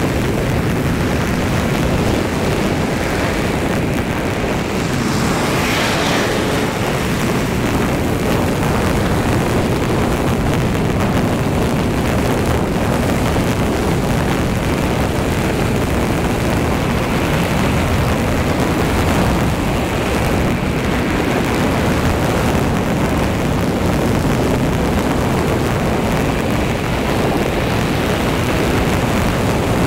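Car driving at road speed: a steady rumble of engine, tyres and wind, with a brief louder hiss about six seconds in.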